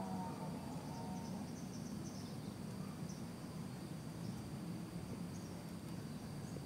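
Outdoor ambience: insects keep up a steady high trill, with a few faint short chirps over a low background rumble.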